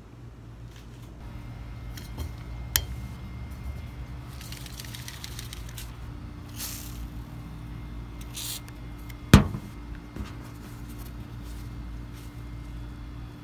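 A WD-40 aerosol can giving a few short hisses as it sprays onto a paper towel, with paper and handling noise. There is a sharp knock about two-thirds of the way through, over a steady low hum.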